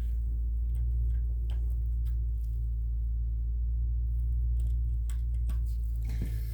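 Scattered light clicks and taps of a brake caliper slider pin and its rubber boot being handled and pushed into the bracket, over a steady low hum.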